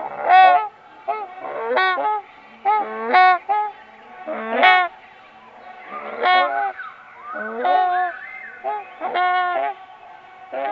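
Quetzalcoatlus creature call built from goose honks: a string of harsh honking calls, about one a second, some bending up or down in pitch.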